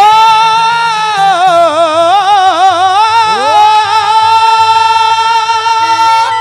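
Male folk singer holding one long high 'o' note into a microphone in a Haryanvi ragini. The note swoops up at the start, wavers through fast ornaments in the middle, then is held steady until it stops near the end, over instrumental accompaniment with a steady low beat.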